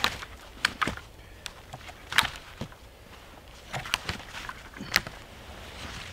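Dry branches and twigs rustling and snapping as they are handled and laid across a log bed frame, with about half a dozen sharp cracks at irregular intervals, and footsteps crunching in snow.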